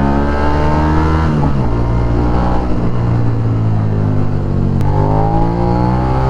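2021 Suzuki SV650's 645 cc V-twin engine accelerating hard under a torque test, its pitch climbing through each gear, with two upshifts where the pitch drops: about a second and a half in and near five seconds in.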